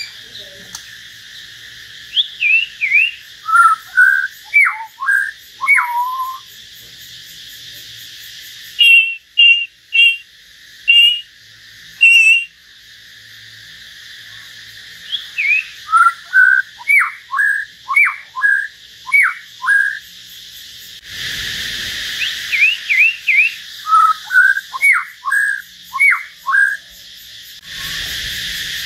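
Caged songbirds, a hill myna and a white-rumped shama, singing clear whistled phrases, many notes sliding down in pitch, over a steady background hiss. A louder rushing noise comes in briefly about two-thirds of the way through and again near the end.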